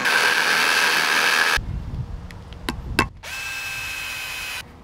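Power drill boring into a concrete paver for about a second and a half. After a few clicks, a drill-driver runs with a steady whine for over a second, driving a screw through a plastic terrace pedestal's base into the paver.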